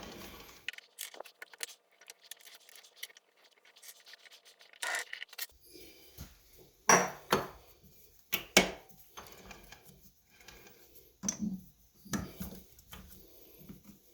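A machine's running hum dies away in the first second, followed by scattered scrapes, clicks and clinks of metal tools and parts being handled, with two louder knocks in the second half.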